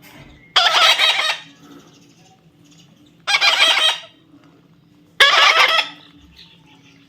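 A baby parrot screeching three times, in harsh, loud calls each under a second long, about two seconds apart.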